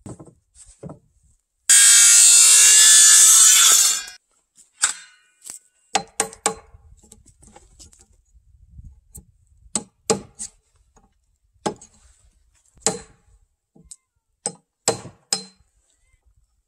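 A cordless circular saw cuts into a timber beam for about two seconds, then a chisel is struck with a hammer in a dozen or so irregular knocks, chopping waste out of the beam end to form a tenon.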